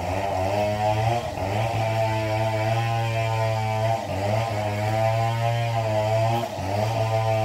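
A small engine running steadily, its pitch wavering slightly, dipping briefly about four seconds in and again a couple of seconds later.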